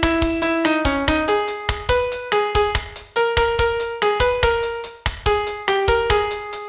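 Piano playing a song's vocal melody one note at a time, each note held briefly before the next, over a steady low beat.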